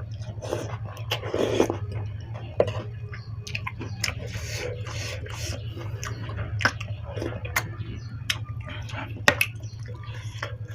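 Noodle soup being eaten close to the microphone: wet chewing and slurping with many small clicks, over a steady low hum.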